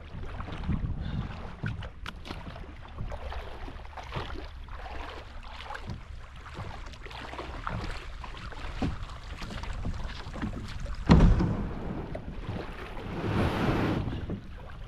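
Knocks and clatter of a fishing kayak and its gear being handled, with wind on the microphone. There is one loud thump about eleven seconds in and a swell of rushing noise near the end.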